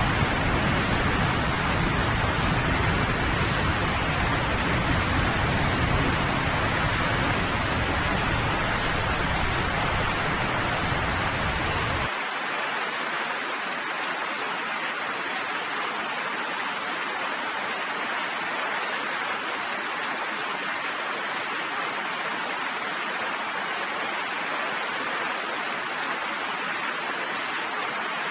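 Steady heavy rain falling, with a low thunder rumble underneath that cuts off suddenly about twelve seconds in.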